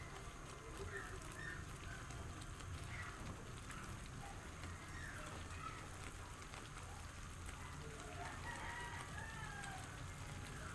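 Faint chicken calls: short scattered clucks and a longer call about eight seconds in, over a steady low hum.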